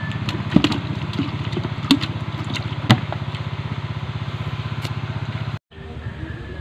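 A small engine idling nearby with a steady, rapid putter, with three sharp knocks over it in the first three seconds. It cuts off abruptly a little after five seconds, leaving quieter outdoor ambience.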